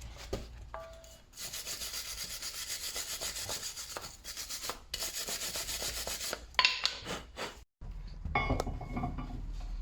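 Wire brush scrubbing rust off the pad slides of a brake caliper carrier: fast back-and-forth scraping strokes, about five a second, that stop after about six and a half seconds. Light knocks and clinks of handled metal parts follow near the end.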